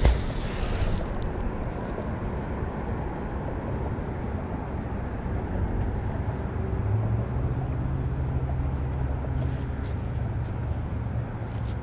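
A magnet splashing into the water right at the start, then a steady low engine rumble, with a low steady hum coming in about seven seconds in.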